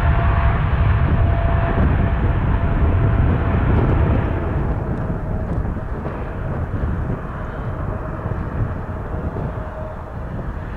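Boeing 777-200 jet engines rumbling low at take-off power, a deep even roar that fades from about four seconds in as the airliner moves away.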